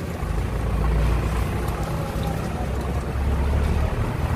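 Steady low rumble of vehicle and road noise.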